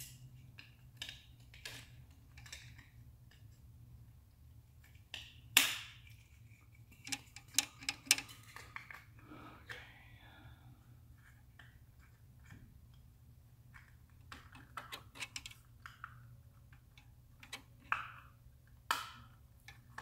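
Scattered clicks and knocks of a small plastic electronics housing being handled while an antenna wire is threaded through a hole drilled in its back, with a few sharper taps, over a faint steady hum.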